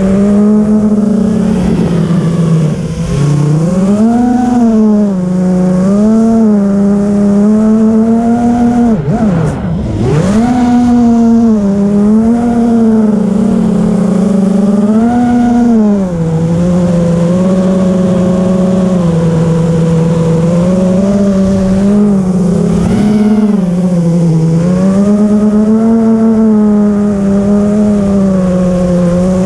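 FPV quadcopter's electric motors and propellers whining, the pitch rising and falling with the throttle. About nine seconds in the pitch drops sharply and then shoots back up, as the throttle is chopped and punched.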